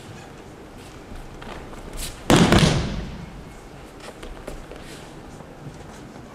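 An aikido breakfall onto tatami mats about two seconds in: a single loud slap and thud of the body and arm hitting the mat, echoing briefly in the large hall. A few faint taps of feet on the mat around it.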